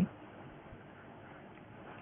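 Quiet, steady background hiss of the recording's room tone, with no distinct sounds in it.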